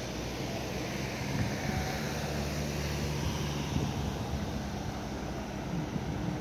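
Outdoor ambience: a steady low motor-like hum under wind noise on the microphone.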